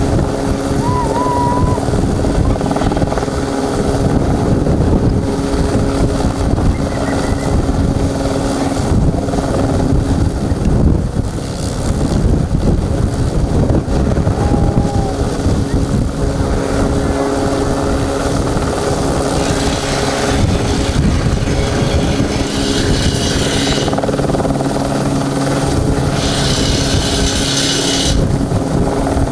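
Helicopter hovering overhead with a steel mast slung beneath it on a long line, its rotor and engine running steadily and loudly while the load is guided down.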